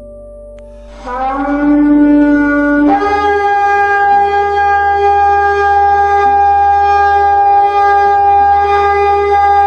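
A shofar is blown. The blast starts about a second in on a lower note, jumps up to a higher note about two seconds later, and holds that higher note steadily and long.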